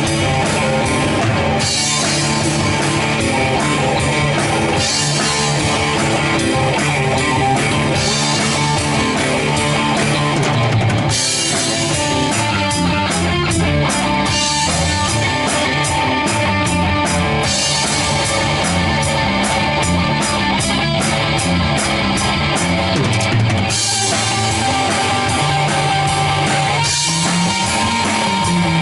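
Rock band playing an instrumental jam on electric guitar, bass and drum kit. About eleven seconds in, the steady cymbal wash breaks into distinct, evenly spaced cymbal strokes, with held guitar notes over it.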